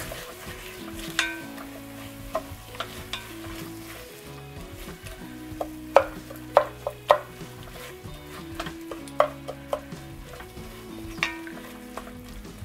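A wooden spoon stirs and scrapes sautéed vegetables and cream cheese in an enameled cast-iron Dutch oven, knocking irregularly against the pot over a low sizzle. The loudest knocks come about six to seven seconds in.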